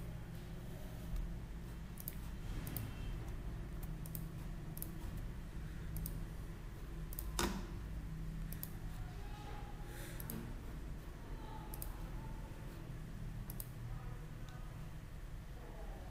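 Computer mouse clicking at irregular intervals, with one louder click about halfway through, over a steady low hum.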